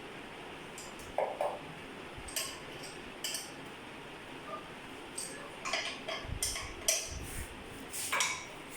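Irregular clicks, taps and light clatter of hard plastic parts and fittings on a reverse-osmosis water purifier being handled and fitted together, about eight separate knocks with a small cluster near the end.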